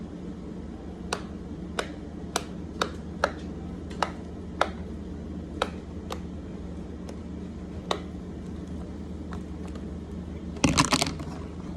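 Simple dimple fidget toy's bubbles being pushed one at a time: about a dozen sharp, separate clicking pops, unevenly spaced. Near the end there is a louder short clatter.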